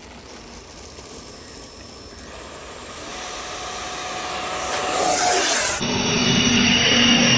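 Electric ducted fan of an RC model jet spooling up: a rushing noise with a high whine that grows steadily louder, changing abruptly about six seconds in.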